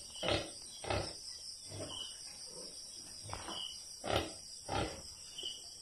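Newly farrowed sow grunting: a series of short, low grunts, roughly one every half second to a second, over a steady high hiss.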